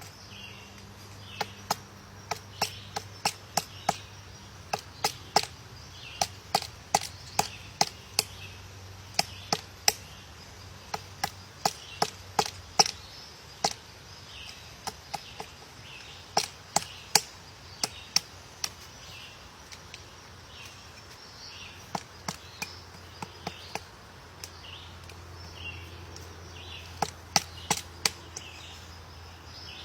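A woodpecker chiselling into a tree with single hard pecks, irregular at about one to two a second, with a few short pauses. A faint series of short high chirps repeats steadily underneath.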